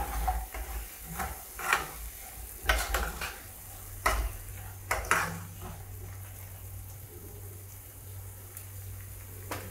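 Steel spatula stirring and scraping thick masala paste around a frying pan, with irregular scrapes and knocks against the pan, busiest in the first half and one more knock near the end. The paste fries gently underneath with a faint sizzle.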